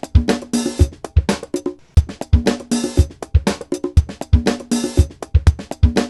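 Music with a steady drum-kit beat of regular bass-drum thumps and snare hits, over a few sustained pitched notes.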